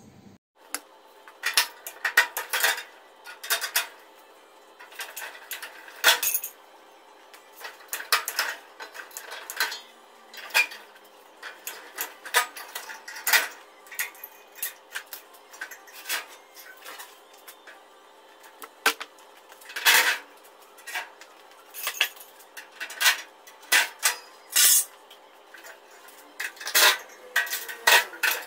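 Irregular, sharp metallic clanks and clinks of tools and metal parts being handled while an air-conditioning outdoor unit is taken apart for scrap.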